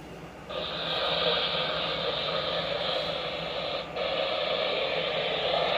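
Radio static: a steady hiss from a small radio speaker that comes on sharply about half a second in, with a brief dropout near four seconds.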